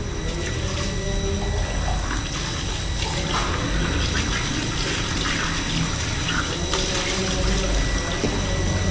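Tap water running into a steel kitchen sink while dishes are washed, with small clinks of plates and plastic cups being handled.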